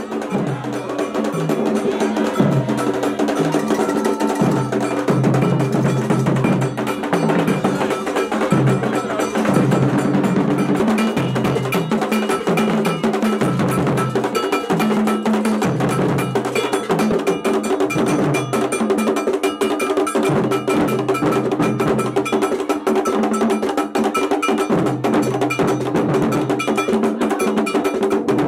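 Traditional drum ensemble of hide-headed drums played with curved sticks, driven by a hand-held iron bell struck in a steady, fast repeating pattern whose ringing sits over the drum strokes.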